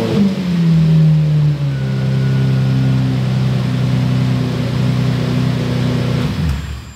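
Lamborghini Murciélago V12 just fired up: the revs flare and fall over the first second or so, then settle into a steady idle, and the engine is switched off near the end, its pitch sinking away. It runs the way a healthy Murciélago should.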